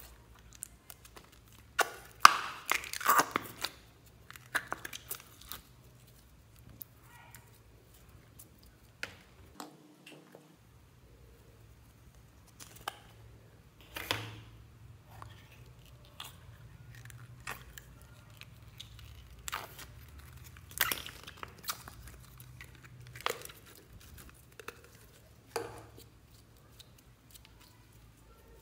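Slime squeezed out of plastic bottles and kneaded and stretched by hand: wet squishing, popping and crackling in irregular bursts, loudest about two to four seconds in and again about twenty-one seconds in.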